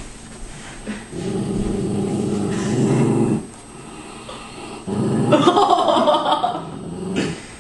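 Dog growling twice, each growl about two seconds long, the second louder and harsher. The growls are a warning to keep a person away from the Christmas gift she is guarding.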